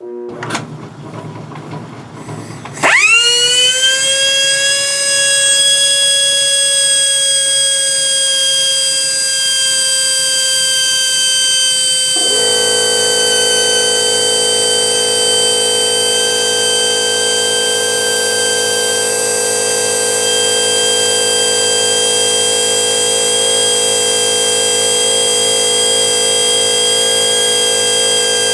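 Air-powered pencil die grinder in the lathe's tool post spinning up with a sharp rising whine about three seconds in, then running at a steady high-pitched whine. About twelve seconds in, a denser layer of lower tones joins abruptly as the lathe turns the three-jaw chuck for grinding the bell-mouthed jaws true.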